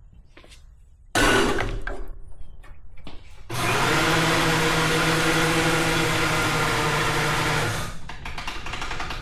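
Overhead electric hoist motor running as it lifts a truck's engine and transmission, a heavy load: a burst of about two seconds, then a steady run of about four seconds that stops near the end.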